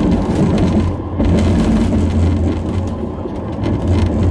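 Modern T1-line tram running, heard from inside the car: a steady low rumble and hum with scattered faint clicks and rattles.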